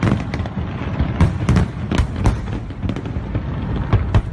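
Fireworks going off in a dense, irregular barrage of bangs and cracks over a continuous low rumble, with several of the sharpest reports around the middle.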